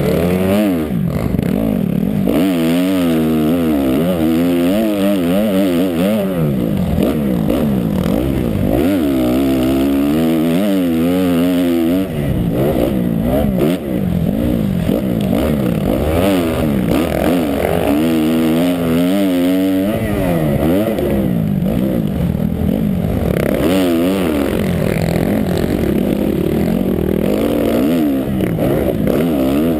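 Motocross dirt bike engine heard close up from a helmet camera, revving hard and repeatedly, the pitch climbing and dropping in quick swings as the throttle is worked on and off.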